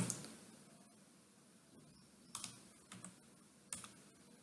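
A few faint computer keyboard keystrokes, spaced out and mostly in the second half, with quiet between them.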